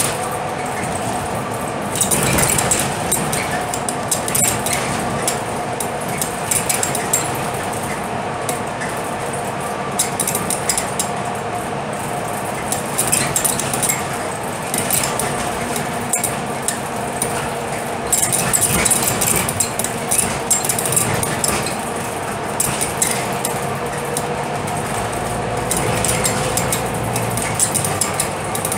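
Cabin noise of a Scania K320UB city bus cruising at road speed: a steady drone from the five-cylinder diesel and driveline, with a constant whine, and bursts of rattling and clinking from loose interior fittings every few seconds.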